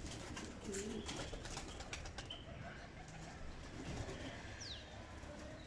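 Domestic pigeons cooing softly, with a short high falling chirp near the end.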